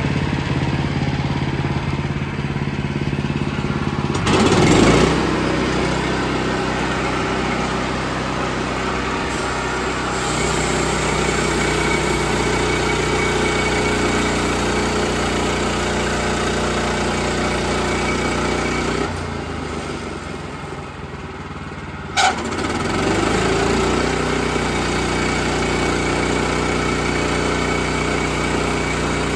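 Portable band sawmill's engine running steadily. It surges louder briefly about four seconds in, drops quieter for a few seconds about two-thirds of the way through, then comes back louder after a sharp click.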